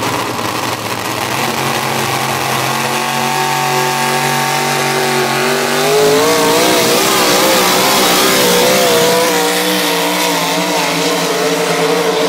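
Dodge pickup's Hemi V8 at full throttle under heavy load, pulling a weight-transfer sled. The revs climb slowly, jump higher about six seconds in and surge up and down for a few seconds, then hold high and steady.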